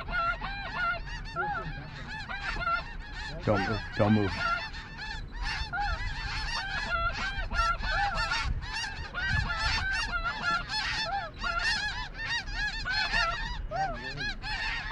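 A large flock of snow geese calling overhead as it circles in to land: a dense, continuous chorus of many short, overlapping honking calls.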